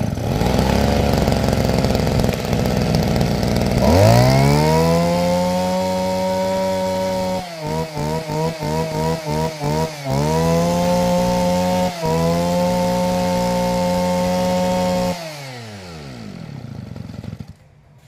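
Mitsubishi TL261 two-stroke brush-cutter engine, just started, idling, then revved up to full speed about four seconds in. For a couple of seconds in the middle the revs dip rapidly, about three times a second, then hold high again. It falls back to idle and shuts off near the end.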